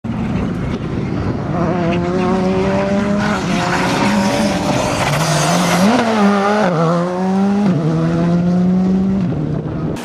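Škoda Fabia R5 evo rally car's turbocharged four-cylinder engine at full throttle. Its pitch climbs through each gear and drops sharply at several quick gear changes as the car accelerates past.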